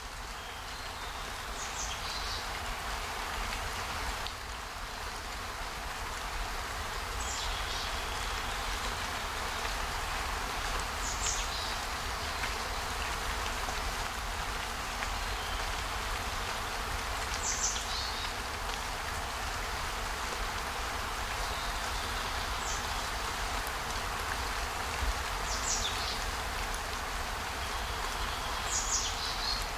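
Steady hiss of falling or running water. Over it, every few seconds, comes a short high call that falls in pitch.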